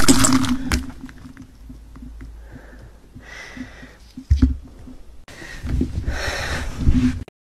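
ASMR trigger sounds picked up close on a condenser microphone: objects handled right at the mic give soft clicks, taps and two longer stretches of rustling, over a faint steady hum.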